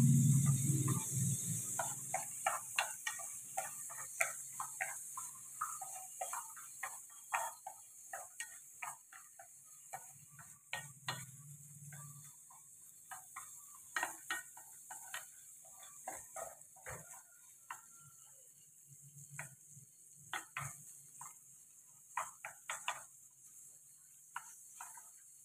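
Wooden chopsticks clicking and scraping against an aluminium frying pan as food is stir-fried, in short irregular strokes a few times a second over a steady faint high hiss.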